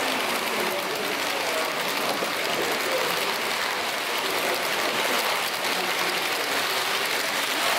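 H0-scale model train of passenger coaches rolling along the layout track, a steady hiss-like noise of wheels on rails, over a murmur of voices in the exhibition hall.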